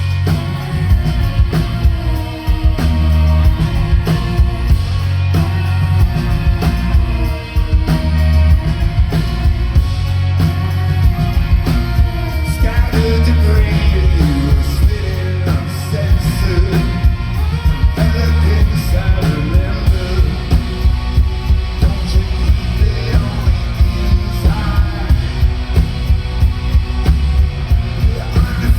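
Rock band playing a song live, with singing over heavy drums and bass. In the latter part a steady, even beat drives the song.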